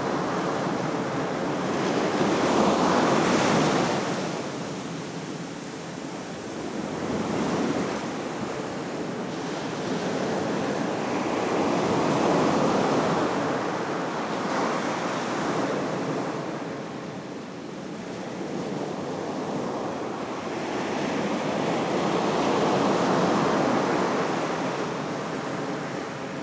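Ocean surf breaking and washing up a sandy beach, the rush of water swelling and fading every few seconds as each wave comes in.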